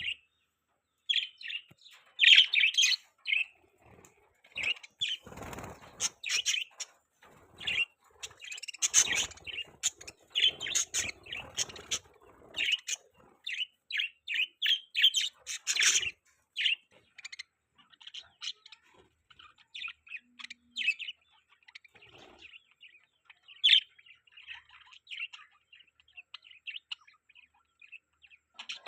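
Several budgerigars chirping and chattering in short, rapid calls, with some wing flutters or rustling in the first half.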